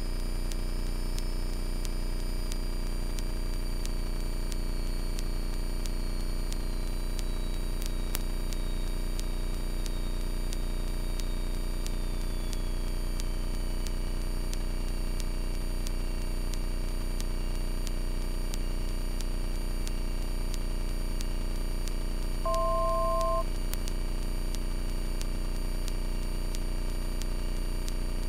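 Light-aircraft cabin drone of a Carbon Cub FX-3's engine and propeller in flight, steady and even, with a high tone in it sliding lower in steps over the first fifteen seconds. About 22 seconds in, a single electronic beep of two pitches at once sounds for about a second.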